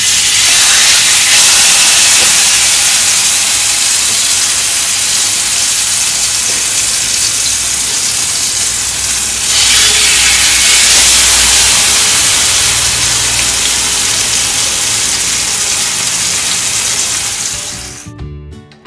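Masala-marinated king fish (surmai) steaks sizzling loudly in hot oil in a frying pan. The sizzle starts suddenly as the first steak goes in, grows louder again about halfway through as a second steak is added, and fades near the end.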